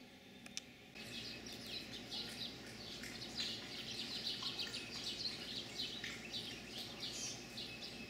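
Many small birds chirping at once in a dense, continuous chorus of short, high chirps. It starts abruptly about a second in, after a brief quiet with a couple of faint clicks.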